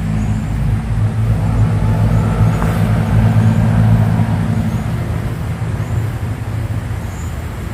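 A motor vehicle's engine running close by, its low hum swelling over the first few seconds and easing off again after the middle, as a vehicle passing.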